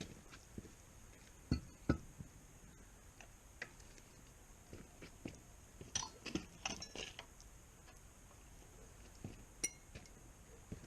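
Hand tools and metal engine parts clinking and knocking now and then as an engine is worked on, with a few sharp knocks near the start and a quick cluster of clinks a little past the middle.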